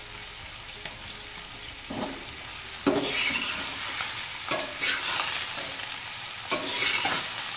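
Raw meat sizzling as it fries with sliced onions in hot ghee in a metal karahi, while a metal spoon scrapes and knocks against the pan as it is stirred. The sizzle grows louder about three seconds in.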